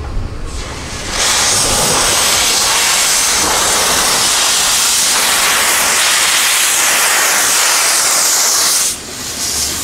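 A narrow-gauge steam locomotive venting steam: a loud, steady hiss that starts abruptly about a second in and cuts off sharply near the end.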